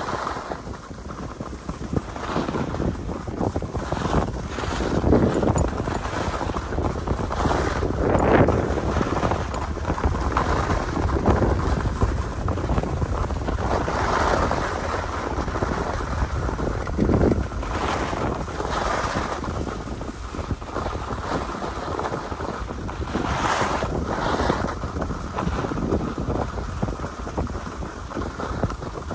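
Wind buffeting the microphone during a downhill run on a ski slope, mixed with the hiss and scrape of sliding over packed snow, swelling and easing every few seconds.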